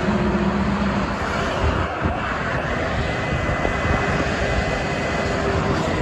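Steady noise of multi-lane expressway traffic passing below: tyres and engines of cars, vans and trucks blending into one continuous rumble.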